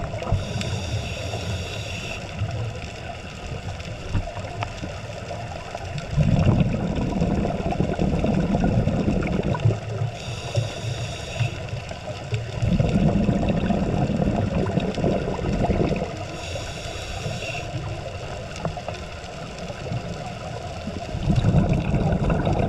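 Scuba diver breathing through a regulator underwater: three short, high hissing inhales, each later followed by a longer low bubbling exhale.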